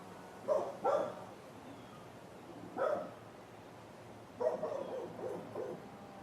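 A dog barking: two quick barks, a single bark about two seconds later, then a run of several barks near the end.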